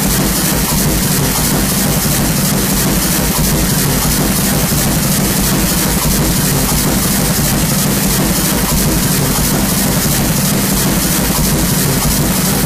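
Loud, unchanging wall of electronic noise: dense hiss across the whole range over a low rumble and hum.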